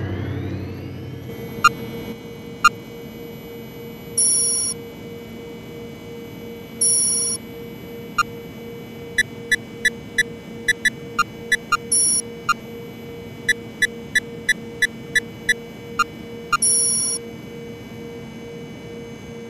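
Science-fiction computer console sound effects: runs of short electronic keypad beeps at about three a second, four longer high-pitched chirps, and a steady pulsing electronic hum underneath.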